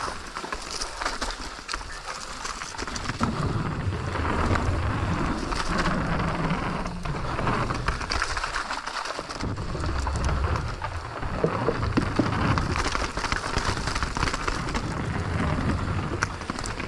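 Enduro mountain bike riding down a rough trail: tyres running over dirt and stones with a steady crunching hiss, the bike rattling over bumps, and a low rumble from about three seconds in.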